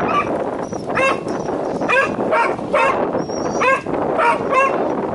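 Spaniel barking in quick, high-pitched yelps, about eight of them one to two a second, over a steady background hiss.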